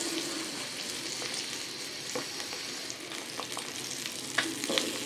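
Spice-coated eggs shallow-frying in oil in a flat nonstick pan, sizzling steadily as the freshly turned side cooks, with a few short clicks of a metal spatula against the pan in the second half.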